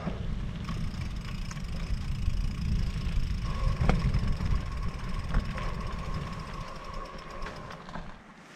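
Riding noise from an electric mountain bike: a steady low rumble with a few clicks and a faint steady whine through the middle, falling away near the end.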